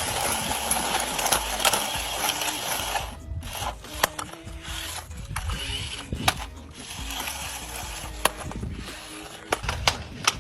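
Small electric RC toy car driving and doing stunts: a whirring motor and gears with tyre noise, broken by scattered sharp knocks.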